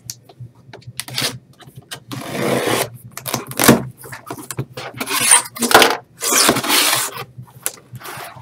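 Cardboard shipping box being cut open with a utility knife and unpacked: the blade scraping through packing tape, then the flaps pulled open and cardboard rubbing and scraping in a string of irregular bursts.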